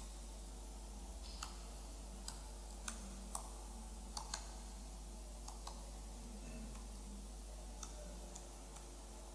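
Laptop keyboard typing: faint, irregular key clicks, about ten in all, bunched in the first half, over a steady low electrical hum.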